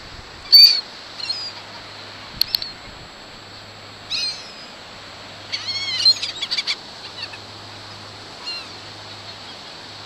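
Gulls calling overhead in scattered short calls, with a quick run of calls a little past the middle, over the steady hiss of surf.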